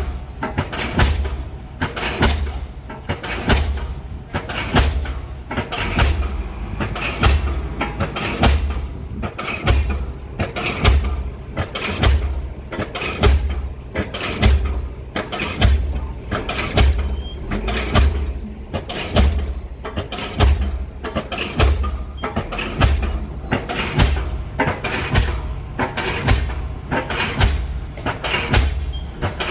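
Diesel pile hammer driving a pile, striking in a steady rhythm of about one blow a second, each blow a sharp bang with a heavy low thump.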